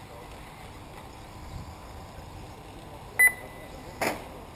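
A short electronic beep, a clear tone with higher overtones, sounds about three seconds in, typical of a race lap-timing system registering an RC car crossing the line. A brief noisy burst follows about a second later, over steady outdoor background noise.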